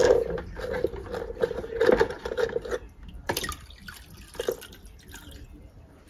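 Descaling solution trickling and dripping from the drained hoses and pump into a bucket of solution, heavier for the first few seconds and then thinning to scattered drips, with a few light knocks from the hoses being handled.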